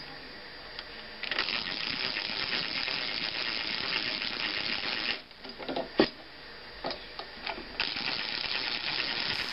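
A drill boring small screw holes into the wooden headstock of a lap steel guitar for mounting the tuners: two spells of drilling, the first about four seconds and the second under two, with a few clicks and knocks between them.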